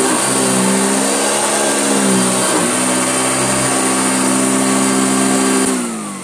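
Hoover Junior bagged upright vacuum cleaner running, a steady motor note with a high whine that sags briefly a few times under load. Near the end it is switched off and the motor winds down with a falling whine.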